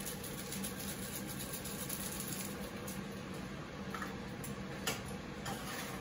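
Food sizzling steadily in a hot frying pan on an electric stove, with a few light clicks of a utensil against the pan in the second half.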